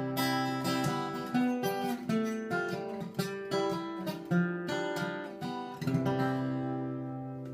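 Acoustic guitar fingerpicked, a run of single notes and chords. About six seconds in a final chord is struck and left to ring, fading away as the tune ends.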